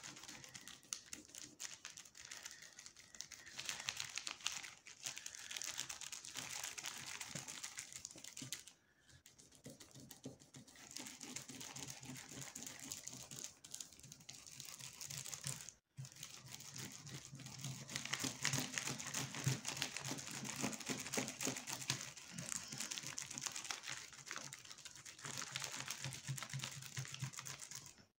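Cloth being rubbed back and forth over a whiteboard covered with a plastic sheet, wiping off marker writing; the loose plastic crinkles under the strokes. The scrubbing runs in long stretches, easing off briefly about 9 seconds in and dropping out for an instant near the middle.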